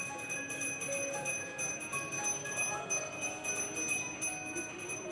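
Brass hand bell rung continuously during temple aarti worship: a steady, bright ringing. Faint changing melodic notes sit underneath.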